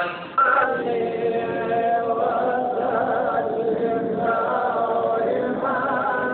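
Male voice chanting a qasida in a melodic, unaccompanied style, holding long notes that waver and ornament up and down. The chant begins about half a second in.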